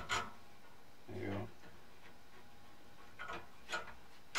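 Light clicks and taps of a motherboard being set down and shifted on a PC case's mounting standoffs as its holes are lined up, with a sharper click near the end.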